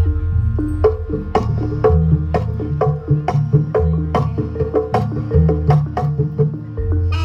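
Jaranan (kuda lumping) gamelan accompaniment: sharp percussion strikes about twice a second over deep drum tones and a short repeating pitched figure.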